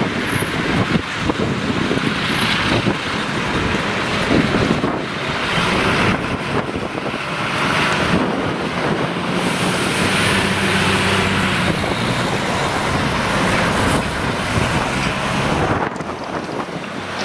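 Fire engine's diesel engine running under way as the truck drives past and pulls away, with tyre and road noise. Wind buffets the microphone throughout.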